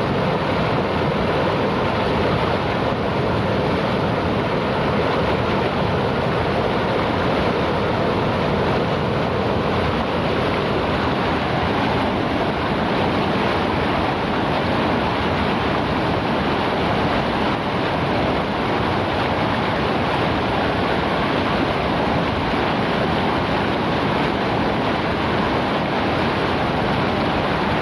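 Steady rush of a flowing river, an even unbroken wash of water noise.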